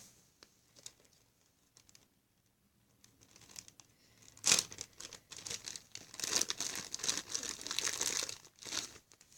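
Fluffy slime being stretched and squished by hand, giving a crackling, tearing sound: a few faint clicks, one sharp crack about halfway, then a dense run of crackling near the end.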